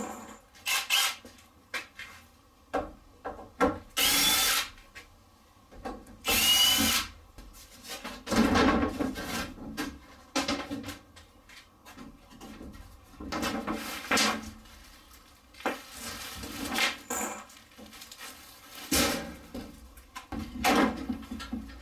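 Cordless drill-driver whirring in several short runs, backing the screws out of a wooden shipping crate, its motor whine rising in pitch. Between the runs come knocks and scrapes of the crate boards being worked loose.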